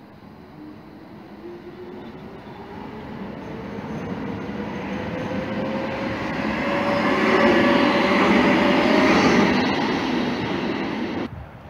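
Bombardier Flexity 2 'Albatros' low-floor tram approaching along street track and passing close by, growing steadily louder to its loudest as it goes past. A whine rises in pitch as it comes on. The sound cuts off suddenly near the end.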